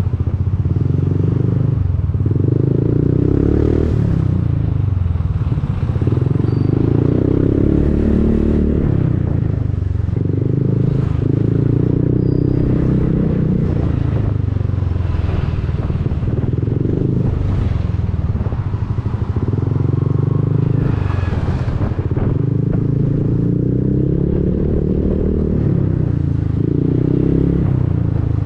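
Honda Forza 300 scooter's single-cylinder engine through an Arrow aftermarket exhaust, running on the move with its pitch rising and falling as the throttle opens and closes.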